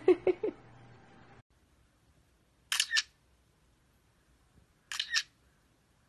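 A short burst of voice-like calls at the very start, then two short, sharp double clicks like a camera shutter, about two seconds apart.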